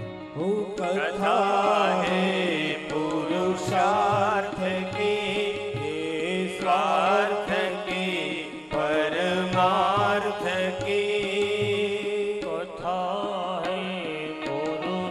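Male voice singing a devotional bhajan in ornamented, wavering phrases, with a harmonium holding steady chords underneath and a rhythmic low beat.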